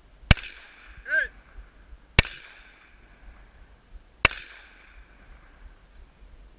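Three semi-automatic pistol shots fired about two seconds apart, each a sharp crack followed by a brief echo.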